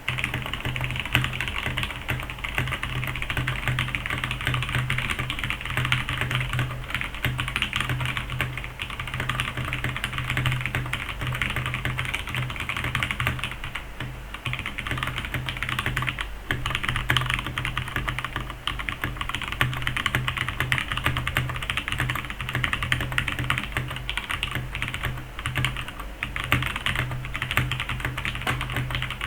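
Mechanical keyboard with tactile brown switches being typed on steadily: a fast, continuous stream of key clacks with a couple of brief pauses about halfway through.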